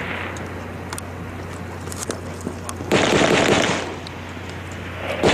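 Automatic gunfire: a few scattered single shots, then a rapid burst lasting about a second about three seconds in, and another burst starting just before the end.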